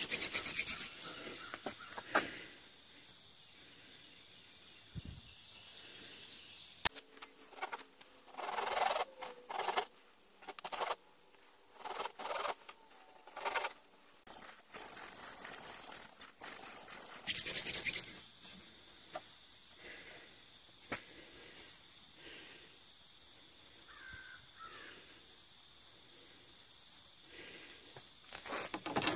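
Crickets chirring in a steady high trill. They go quiet through the middle, where a sharp click is followed by some ten seconds of rough, irregular scraping strokes of a blade on wood.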